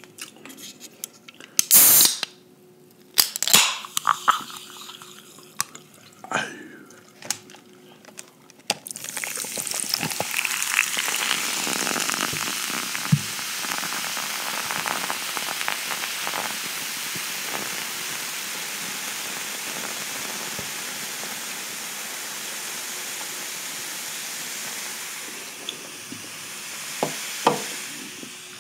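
A few sharp clicks and taps, then Pepsi cola poured from a can into a glass from about nine seconds in. It fizzes with a steady hiss that slowly dies down as the carbonation settles.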